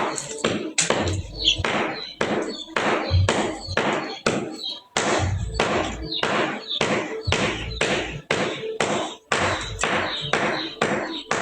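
A steady, even run of sharp taps or knocks, about three a second, each ringing briefly.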